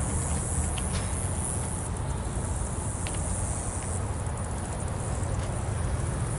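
Steady low rumble of a GE B23-7 diesel locomotive approaching in the distance, with a few short high chirps about a second in and again about three seconds in.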